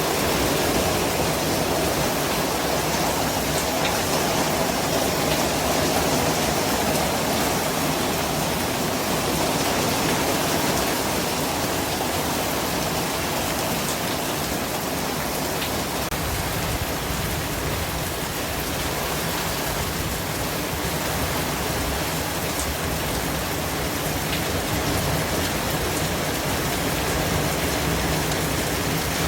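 Steady white noise: an even, unbroken hiss spread across all pitches, with a slight swell in the lower middle during the first ten seconds or so.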